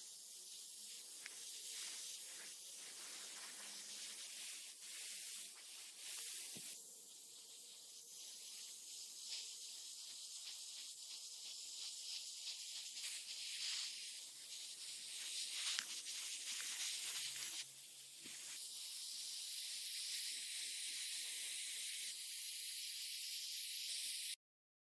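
Airbrush spraying paint: a steady high hiss that rises and falls a little, dips briefly about 18 seconds in, and cuts off suddenly near the end.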